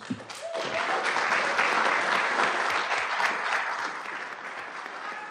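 Audience applauding, building up in the first second and tapering off toward the end.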